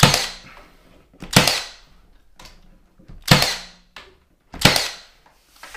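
Milwaukee 18-gauge cordless finish nailer firing nails into wooden window casing: four loud, sharp shots spaced one to two seconds apart, each with a short fading tail, and a fainter one near the end.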